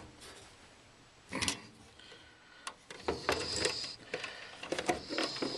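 Hand work on furnace parts: a sharp knock about a second in, then a run of small metal clicks, rattles and a brief squeak as parts are handled and fitted.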